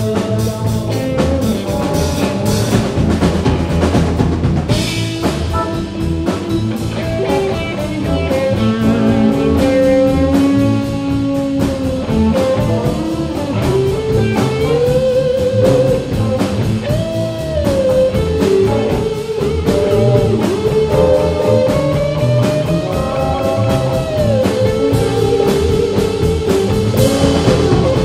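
Live blues-rock band playing an instrumental passage: electric guitars, electric bass and a drum kit keep a steady groove while a lead electric guitar plays sustained notes that bend up and down in pitch.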